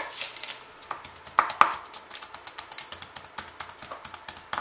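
Kitchen knife dicing an onion on a wooden cutting board: quick, irregular taps of the blade striking the board, a couple of louder knocks about a second and a half in.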